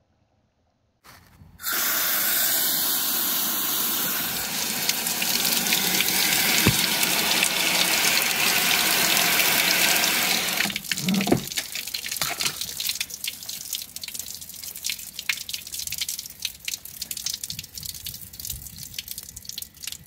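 Water from a hose spraying onto the car: a steady loud hiss that starts about a second and a half in. From about ten seconds in, it gives way to irregular splashing and dripping as water runs down onto the parts under the front.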